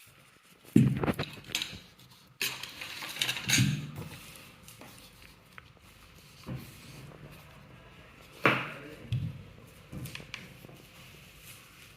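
Handling noises from the unboxing: several sharp knocks and bumps, with a stretch of rustling packaging between them.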